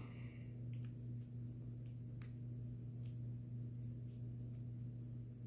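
Faint handling noise: a few short, soft clicks as ribbon is worked around a plastic toy horse's head by hand, over a steady low hum.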